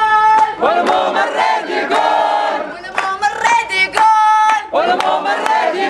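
Protest chanting: slogans are shouted in rhythm through a handheld megaphone and a group of protesters chants back. The phrases are loud and sing-song, following one another in quick succession with sharp short strokes between them.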